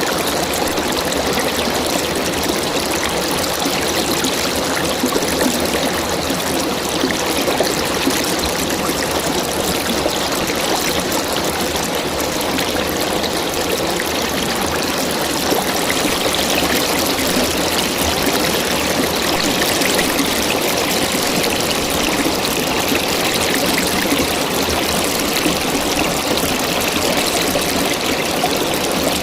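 River water flowing and splashing over stones, a steady rushing babble.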